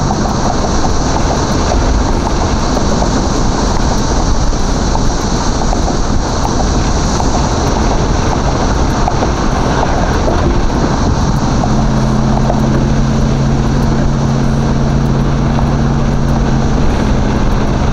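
Stock small-block V8 of a box Chevy Caprice cruising, heard from inside the cabin over a steady rush of road noise. About two-thirds of the way in, a steady low engine drone comes up and holds.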